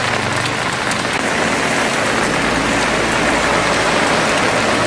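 Rain falling steadily onto waterlogged ground: a dense, even hiss of drops splashing on standing water.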